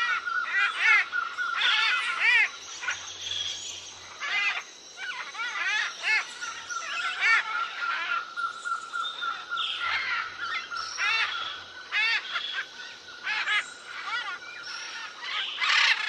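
Many birds calling together: quick, overlapping chirps and short calls that bend up and down in pitch, over a steady high-pitched tone that runs underneath most of the time.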